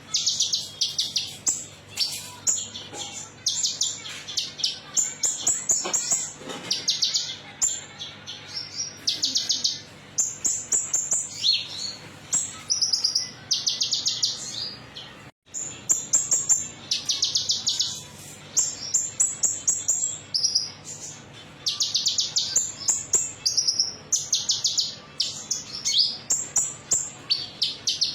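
Common iora (konin) singing a metallic, rapid, high trilled song in short phrases that follow one another every second or so, with a brief break about halfway through.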